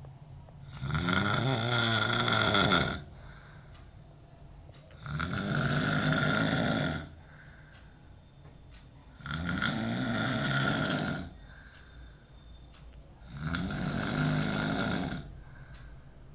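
A person snoring in sleep: four loud, rasping snores, each about two seconds long and about four seconds apart, with quieter breathing between.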